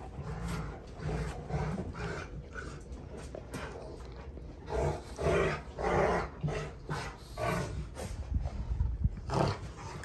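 Rottweilers play-growling while they wrestle, a series of rough growls that are loudest about five to six seconds in.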